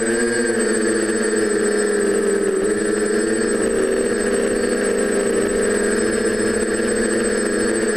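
TBS Discovery quadcopter's four DJI 920Kv brushless motors spinning 9x5 Graupner E-prop propellers, a steady multi-toned whir whose pitch wavers slightly as the throttle shifts, with a thin high-pitched tone above it.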